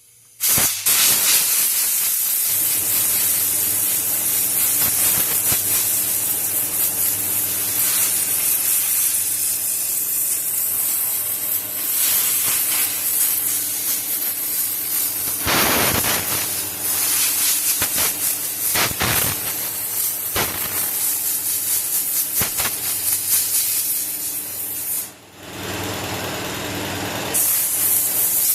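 Compressed air hissing from an air-hose nozzle as it blows dust out of a pleated cabin air filter. The blast starts about half a second in, is loud and continuous, and stops briefly near the end before starting again.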